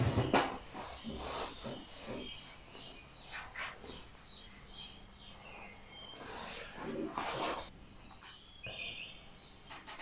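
Rustling and handling noise as the jeans-clad legs and feet are shifted about on a padded chiropractic table, in short irregular scrapes and rubs. A few faint, short high chirps are heard between them.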